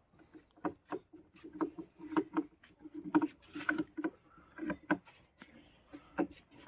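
Irregular light knocks and clicks, a few a second, of hands handling and working on parts.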